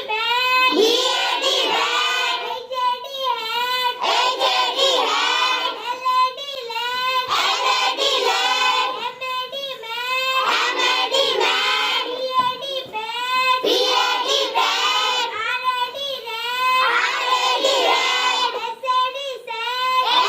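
A group of young children singing together in a sing-song chant, phrase after phrase with short breaks between.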